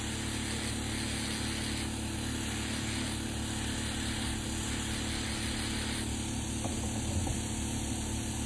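Podiatry rotary nail drill running with a steady low motor hum while its burr files a toenail.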